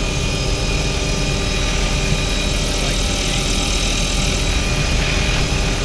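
Helicopter in flight: the rotor and engine running steadily, heard from inside the open, doors-off cabin.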